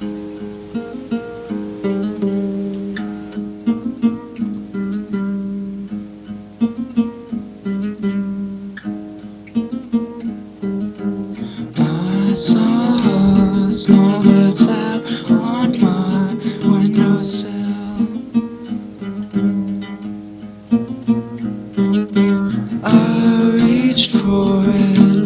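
Acoustic guitar music with picked notes. About halfway through it gets fuller and louder, with a higher part that slides in pitch above the guitar.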